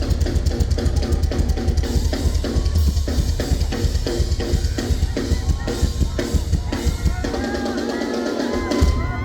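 Live rock drum solo on a full kit: rapid, driving bass drum and snare strikes. About seven seconds in the drumming mostly drops away and the arena crowd cheers and whoops, with one more heavy drum hit near the end.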